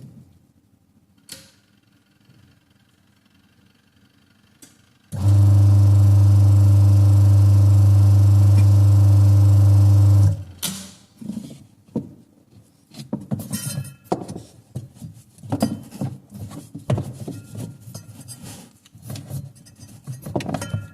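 Semi-automatic washing machine's electric motor switched on, giving a loud steady hum for about five seconds before cutting off abruptly. After it come irregular metallic clinks and clatters.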